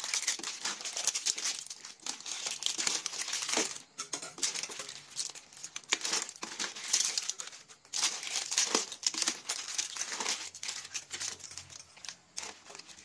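A gloved hand tossing clams, shrimp, corn and saucy noodles in a steel pot: continuous crinkling of the plastic glove with wet squelches and clicks of shells, easing briefly twice.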